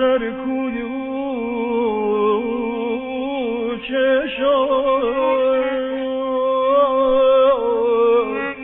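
Male voice singing Persian classical avaz: one long, wordless melismatic phrase with quick wavering ornaments, over a steady held accompanying note.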